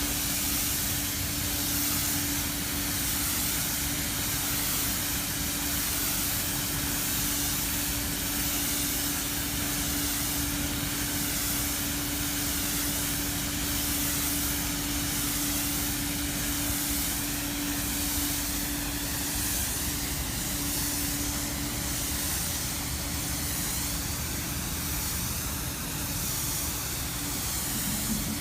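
Polyurethane spray rig running: a steady spraying hiss with a constant machine hum underneath.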